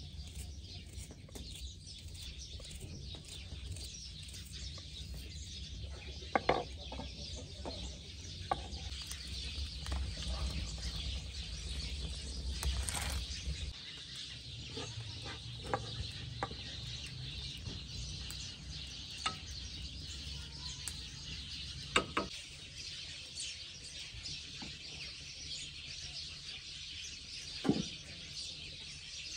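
Birds chirping steadily in the background, with a few sharp clicks and knocks of cooking utensils. A low rumble stops about halfway through.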